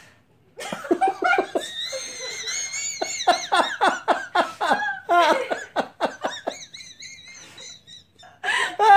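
Two girls laughing hard, in rapid bursts with high-pitched squeals, starting about half a second in and dying down near the end.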